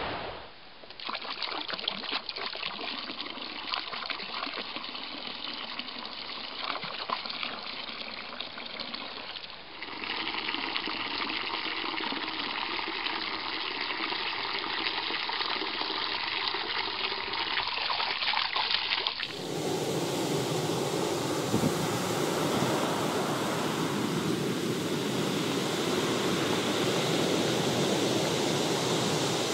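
A run of water sounds in turn: running water for several seconds, then a stream of water splashing into a shallow stone basin and spilling over its rim, then from about nineteen seconds in surf breaking and washing up a pebble shore, with wind.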